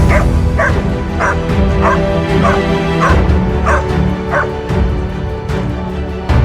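A dog giving a run of about eight short, high yips and whimpers, a little over one a second, over background music.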